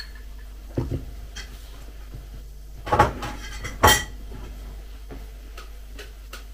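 Dishes being set down: a knock about a second in, then two louder clatters near the three- and four-second marks as a bowl with a spoon in it is put down on the kitchen counter, the spoon clinking.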